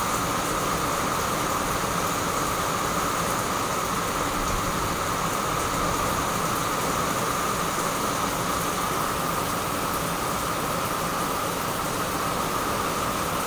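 Heavy rain falling steadily: an even, unbroken hiss with no change in strength.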